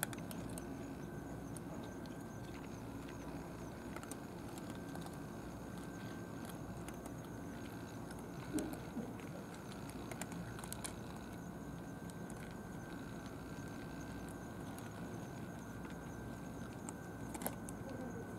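Cats eating dry kibble from trays: scattered faint crunching clicks over a steady outdoor background hum, with one brief louder sound about halfway through.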